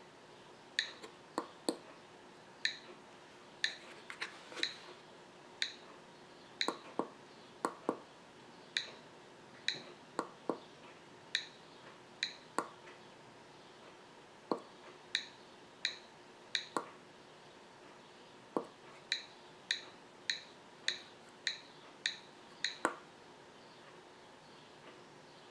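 SparkFun Metro-Gnome digital metronome's piezo buzzer ticking short, high clicks at a steady beat. The tempo is being changed: about one tick a second at first, quickening to roughly one and a half a second near the end.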